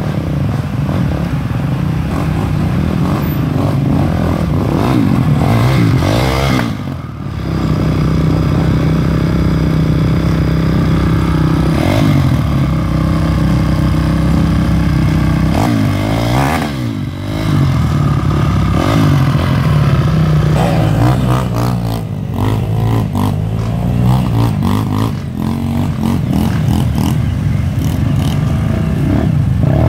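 Dirt bike engines running and revving up and down, the pitch swinging repeatedly as the throttle opens and closes. The sound drops briefly about seven seconds in and again around seventeen seconds.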